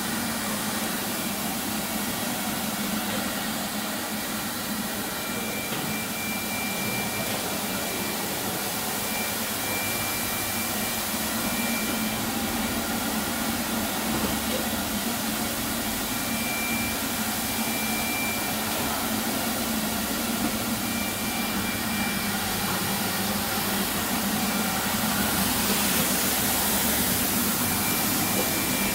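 Automatic carpet washing machine running: its motor-driven rotating disc brushes scrubbing wet carpet on the conveyor make a steady whirring hiss, with a thin high whine that comes and goes.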